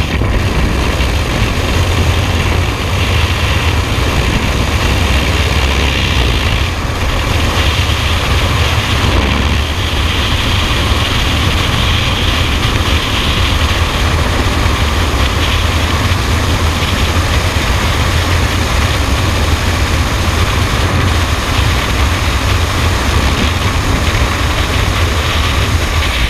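Loud, steady rush of freefall wind buffeting a skydiver's helmet-camera microphone, a deep unbroken roar that stays flat throughout.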